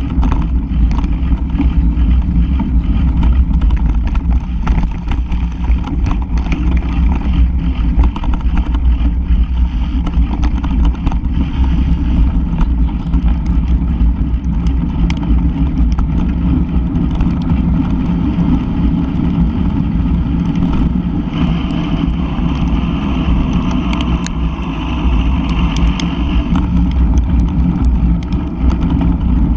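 Mountain bike rolling fast over dirt and gravel lanes, heard from a camera mounted on the bike. A steady low rumble of wind and tyre noise on the microphone is broken by frequent sharp clicks and rattles from stones and the bike.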